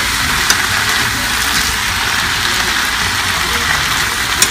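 Kale and bacon sizzling steadily in a hot pan as they cook down, with a couple of sharp utensil clicks against the pan, one about half a second in and one near the end.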